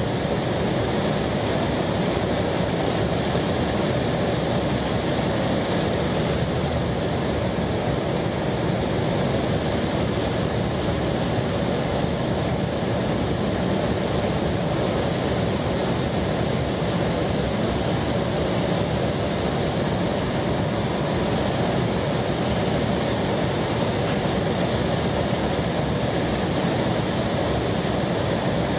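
Steady cabin noise of a jet airliner in flight: an even, unchanging rumble and hiss of airflow and engines heard from inside the cabin.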